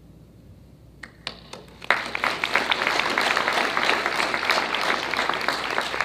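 Audience applauding: a few scattered claps at first, then full, steady applause from about two seconds in.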